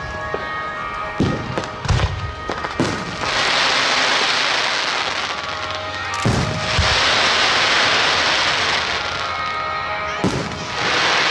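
Aerial fireworks exploding overhead: a run of sharp booms, two or three close together at a time, each group followed by a dense crackling that lasts a few seconds.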